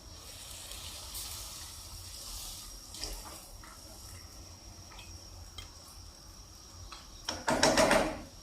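Water being poured into a cooking pot of chicken stew, with one loud pour of about a second near the end. Before it there is a soft hiss and a few light clicks.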